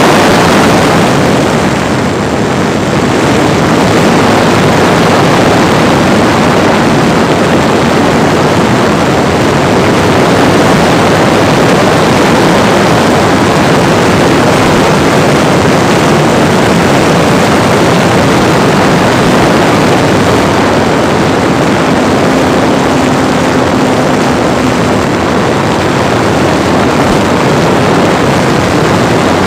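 Parkzone T-28D Trojan RC plane in flight, heard from a camera in its own cockpit: the brushless electric motor and propeller running under a loud, steady rush of air.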